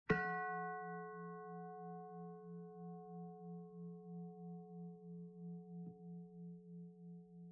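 A bell, in the manner of a singing bowl, struck once and left to ring, its low hum pulsing two or three times a second as it slowly dies away.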